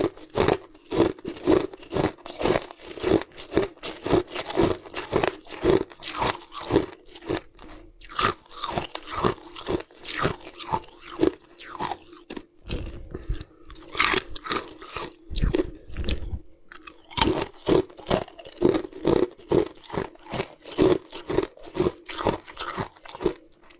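Ice being crunched between the teeth and chewed: a fast run of sharp, crackling crunches, two or three a second, that thins out for a few seconds in the middle before picking up again.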